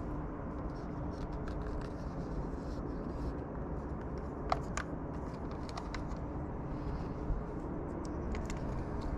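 A few light clicks of small carburettor parts being handled, over a steady low background rumble.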